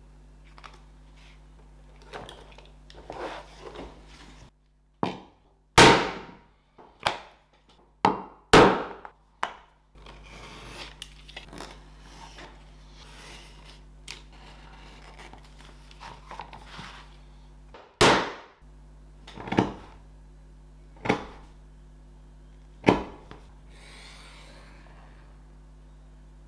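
Leatherworking hand tools on a bench: a string of sharp, loud knocks from tools and a steel ruler being handled, with quieter scraping between them as a utility knife cuts leather along the ruler. A steady low hum runs underneath.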